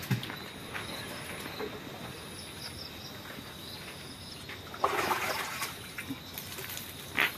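Outdoor field ambience with a faint steady high insect-like drone and scattered small clicks; about five seconds in comes a short rustling scuff, and a sharp click near the end.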